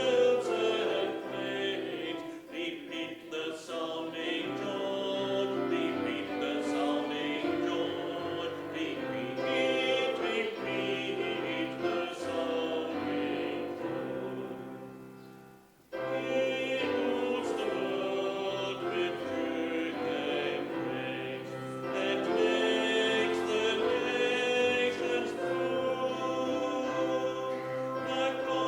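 Choir singing a Christmas carol with accompaniment. About halfway through the music fades almost to silence, then starts again suddenly at full strength.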